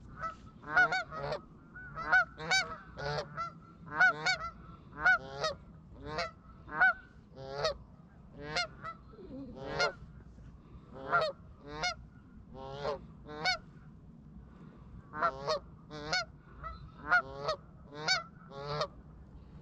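Canada geese honking: a long run of repeated honks, about one to two a second, with a short lull about fourteen seconds in.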